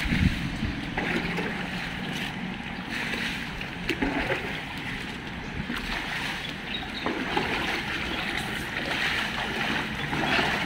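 Shallow pond water splashing and sloshing steadily, with a few brief knocks, as people wade through a nearly drained fish pond and scoop tilapia out with a plastic crate.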